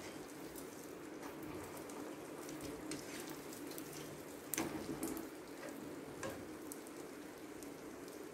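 Adhirasam deep-frying in hot oil: a steady sizzle with scattered small crackles, and a louder flurry of crackling about four and a half seconds in.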